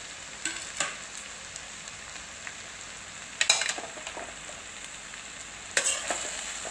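Chapathi noodles and vegetables sizzling in a metal pan while a metal spatula stirs them, scraping against the pan now and then: a couple of light scrapes early, louder clatters about three and a half seconds in and again near six seconds.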